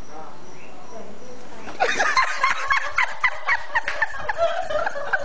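A person cackling with quick, high-pitched laughter that breaks out about two seconds in, over a steady background hiss.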